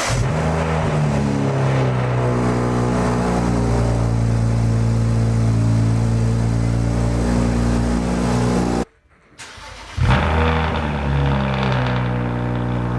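BMW N54 twin-turbo inline-six, just started, flaring briefly and then running at a steady idle. About nine seconds in the sound cuts out abruptly, and about a second later the engine is running again.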